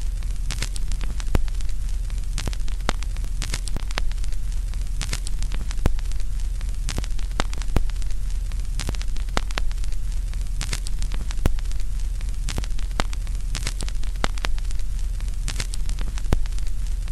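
Static noise: a steady low electrical hum with irregular crackles and pops scattered through it.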